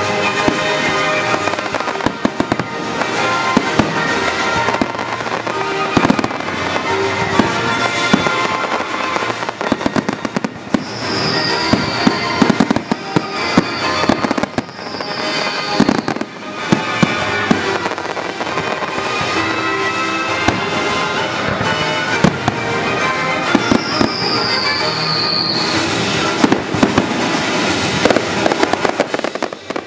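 Fireworks display: rapid bangs and crackling bursts over music playing, with a few short falling whistles in the middle and again later.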